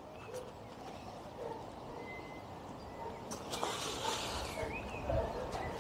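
Dogs at distant kennels barking on and off, faint, with a bird chirping briefly.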